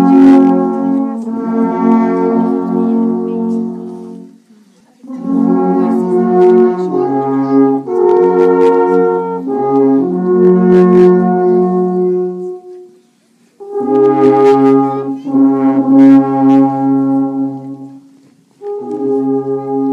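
Alphorn music: long held horn notes played in phrases, with a short pause after each phrase about four, thirteen and eighteen seconds in.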